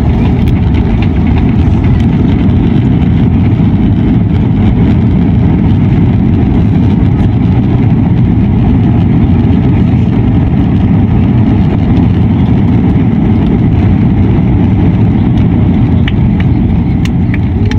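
Airbus A320's landing rollout heard from inside the cabin: a loud, steady roar of the engines and the rumble of the wheels on the runway as the airliner slows with its spoilers raised.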